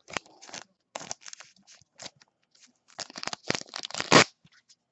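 Clear plastic card sleeve and bag crinkling as trading cards are handled and slid in, in short scattered crackles that bunch together and grow louder near the end, with one sharp crack just after four seconds.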